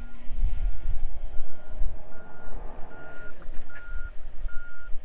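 An electronic beeper sounding a single high, even beep about every 0.8 seconds, seven beeps in all, over a low rumble with a few dull thumps.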